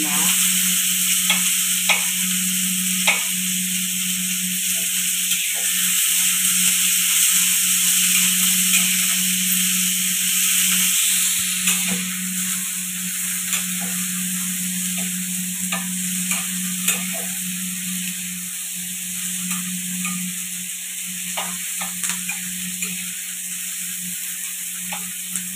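Chopped onions and garlic sizzling on a flat steel tawa over a gas burner as they are browned. A steel spatula scrapes and clicks against the pan again and again as they are stirred. A steady low hum runs underneath, and the sizzle eases a little about halfway through.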